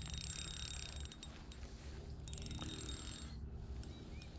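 Fishing reel working in two spells of about a second each, a fast whirring click, as a small jack pike is played on light lure tackle. A steady low rumble runs underneath.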